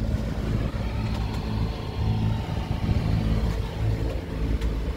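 Sailing catamaran's diesel engine running steadily as the boat motors along, a low even hum under a hiss of wind and water.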